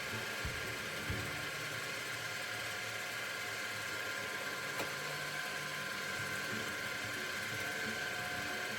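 Benchtop lathe running, a steady motor whine with a constant hum beneath, with a few faint ticks about a second in.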